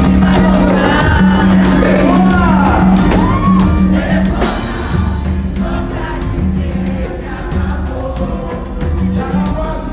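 Loud music with singing over a steady beat, starting abruptly, with sliding, swooping vocal lines in the first few seconds.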